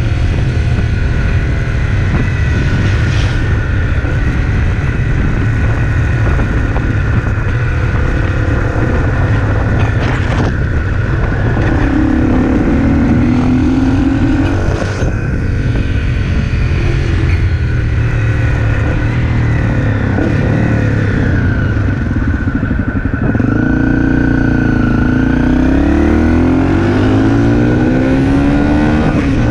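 Honda CRF250L single-cylinder engine running at road speed, over a heavy rumble of wind and road noise. Its pitch rises and falls with the throttle, most clearly a little under halfway through and again in the last few seconds.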